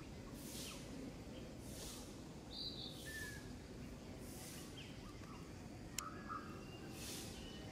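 Outdoor ambience of birds chirping in short scattered calls over a steady low background hiss, with a high hiss that swells and fades about once a second. A single sharp click about six seconds in.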